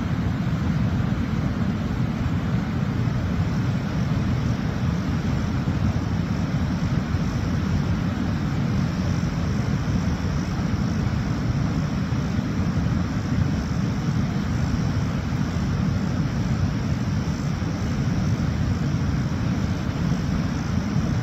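Steady low rush of a waterfall, falling water making an even noise with no breaks.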